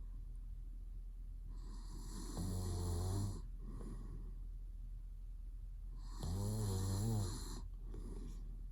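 A sleeping man snoring: two long snores about four seconds apart, each a low buzzing rumble with a breathy hiss.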